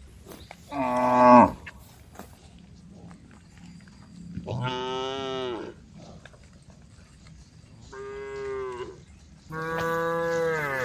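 Cows mooing: four long calls, each held on a fairly steady pitch, the first the loudest and dropping in pitch as it ends.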